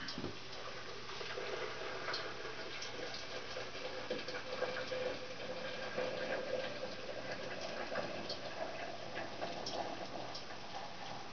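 Small clicks, taps and light rustling as things are handled at a kitchen shelf, over a steady hiss, with a faint hum through the middle of it.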